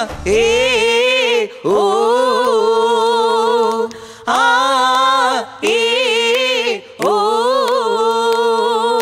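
A single voice singing unaccompanied: long held, wavering notes without words in about five short phrases, opening a Malayalam folk song.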